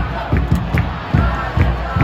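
Soccer supporters' section chanting and cheering, with low thuds beating about two to three times a second.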